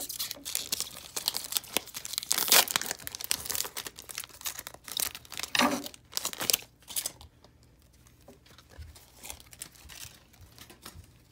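A wrapper on a Panini Contenders football card pack is torn open and crinkled as the cards are pulled out. The loudest rip comes about two and a half seconds in. The crinkling dies down about seven seconds in, leaving only faint handling of the cards.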